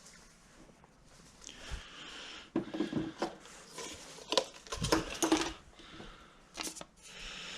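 Hands handling new ignition leads: irregular light clicks and plastic rustling as the leads and their rubber boots are sorted and knocked together, with a few sharper clicks in the second half.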